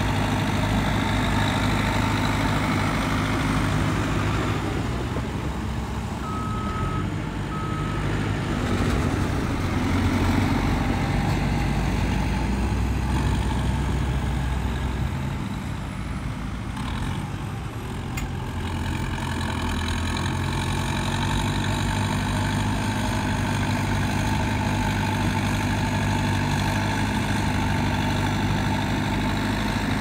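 Heavy diesel engine of earthmoving machinery running steadily, its note shifting a few times with load. Two short beeps of a backup alarm sound about six seconds in.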